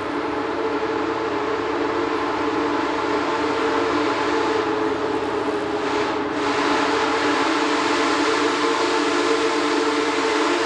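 Union Pacific Big Boy No. 4014 steam locomotive's chime whistle held in one long unbroken chord, growing slowly louder as the train approaches.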